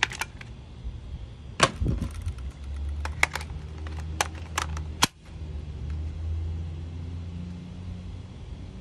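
Magazines being swapped in an AK-pattern pistol: sharp metallic clicks and clacks as the magazine is rocked out and a steel AK magazine is seated and locked in. The loudest clack comes about a second and a half in, followed by a cluster of clicks between about three and five seconds in.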